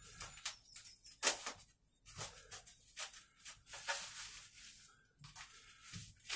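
Scissors snipping through plastic wrapping and tape on a long parcel: a string of irregular cuts mixed with the crinkle of the plastic.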